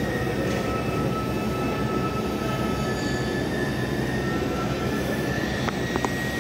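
Steady machine drone of a welding workshop, even in level throughout, with two or three sharp clicks near the end.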